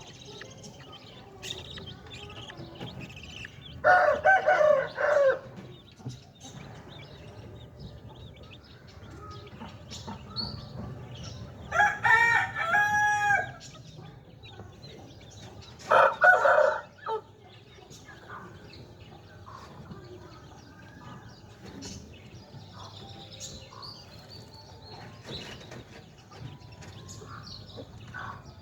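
A rooster crowing three times, about four, twelve and sixteen seconds in, with faint chirping in between.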